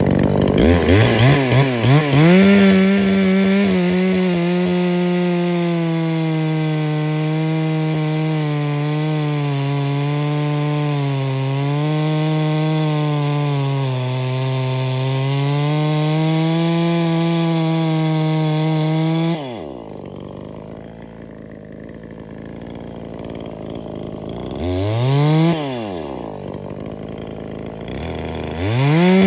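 Ported two-stroke Neotec NH843 chainsaw (a Husqvarna 543XP clone with its base gasket deleted) revved to full throttle and bucking through a log, the engine pitch sagging and recovering under load as the chain cuts. About 19 seconds in the throttle is released and it drops to idle, blips once, then revs back up to full throttle near the end for the next cut.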